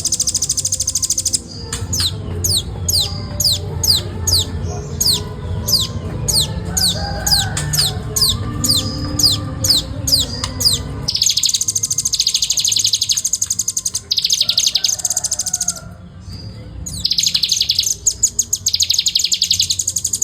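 Velvet-fronted nuthatch (rambatan) calling in fast, tight chatter. A dense, very high rapid trill gives way about a second and a half in to a run of quick descending notes, two or three a second, and then bursts of the rapid trill return.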